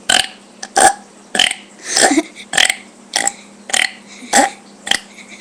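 A person burping over and over in quick succession: about nine short burps, one roughly every half second.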